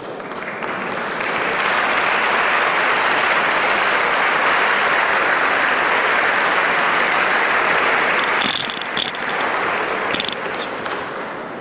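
Audience applauding: the clapping swells about a second in, holds steady, and dies away after about eight seconds.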